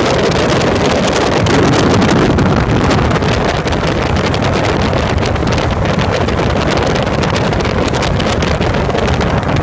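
Open-cockpit light aircraft in flight: a steady engine drone mixed with heavy wind rushing over the microphone.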